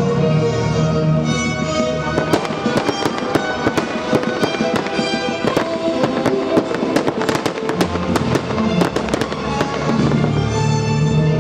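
Fireworks going off in a rapid string of bangs and crackles, densest from about two seconds in until near the end, over music.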